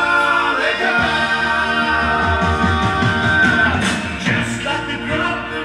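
A vinyl record playing on a Pioneer PL-630 turntable: a song with singing over instruments.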